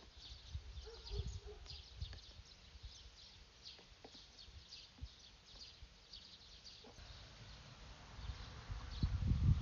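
Short high chirps from a small animal, repeating about twice a second, over low rumbling wind noise that swells near the end.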